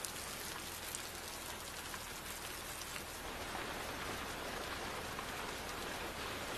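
Steady rain falling on a car's body and into puddles on the pavement.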